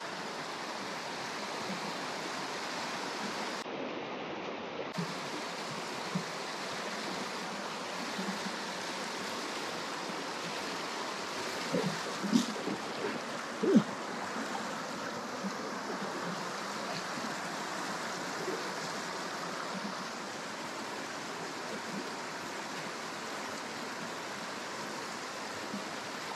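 Mountain stream rushing steadily over rocks. About halfway through, a short cluster of sharp knocks and splashes rises above the water, the loudest two a little over a second apart.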